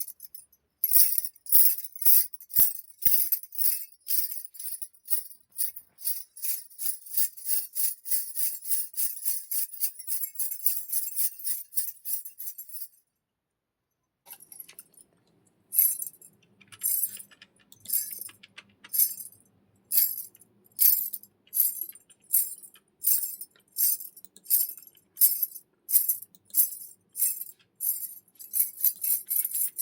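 A bunch of bangles shaken in rhythm for a film sound effect, jingling about three times a second, then briefly stopping about halfway and resuming more slowly, a little over once a second.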